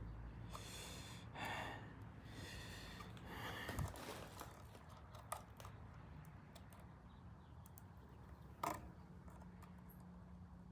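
Faint handling sounds of small hand tools at work: four soft hissy rustles or breaths in the first four seconds, scattered light clicks, and one sharper click a little before the end.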